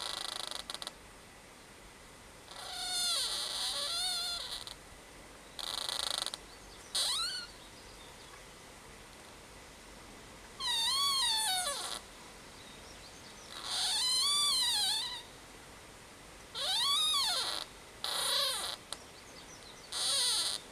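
Trees creaking: a series of drawn-out creaks, each about a second long and wavering up and down in pitch, coming every few seconds with quiet gaps between.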